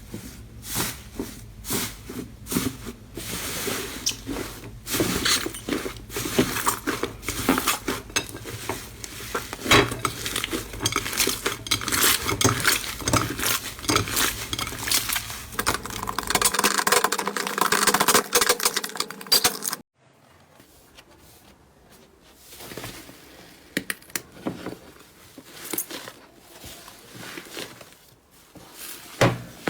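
Slime being pressed and worked by hand: a dense run of crackles and clicks that stops abruptly about two-thirds of the way through, followed by quieter, scattered clicks and squishes.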